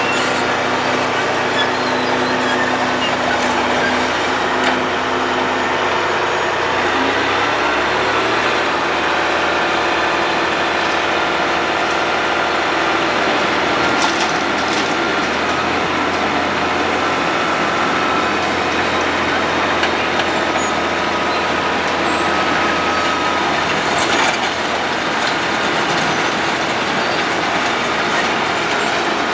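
Road planer (cold milling machine) at work: a heavy diesel engine running steadily under the dense grinding noise of the machine milling the road surface. The engine note drops about seven seconds in.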